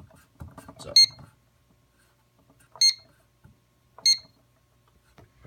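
Fire alarm control panel keypad beeping as its keys are pressed to step through the menu: three short, identical high beeps about a second to two seconds apart, each with a faint key click, with some light handling noise in the first second.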